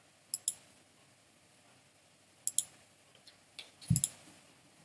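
Clicks of a computer's pointing device as items are selected on screen: three pairs of quick, sharp clicks about two seconds apart, the last pair with a soft thud.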